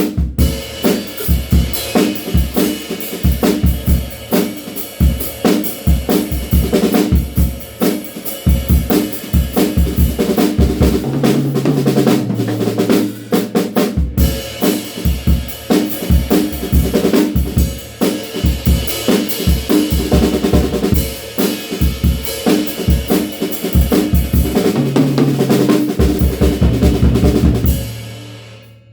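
DW Frequent Flyer drum kit played in a continuous groove: bass drum, snare with rimshots and cymbals, with ringing tom fills twice. The playing stops near the end and the drums ring out.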